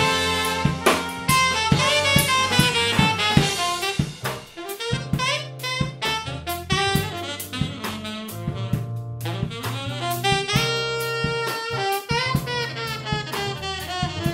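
Jazz tune with a saxophone playing the melody in quick runs of notes over a drum kit.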